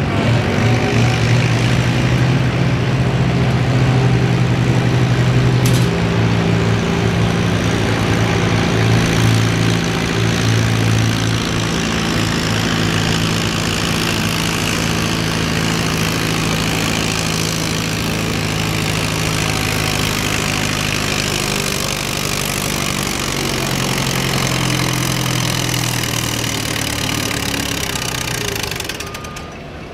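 Antique tractor's engine running hard under load as it drags a weight-transfer sled, a steady deep drone that falls away near the end as the pull stops.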